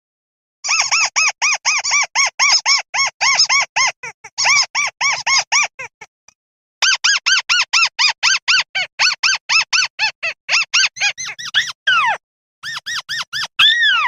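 Rail calling: a rapid series of squeaky notes, about five a second, for about five seconds. After a short pause comes a second, similar series, and it ends with a few longer falling squeals. This is a recorded lure call for rails.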